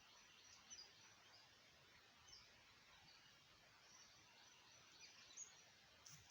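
Faint, scattered short bird chirps over a quiet outdoor hiss, nearly silent overall.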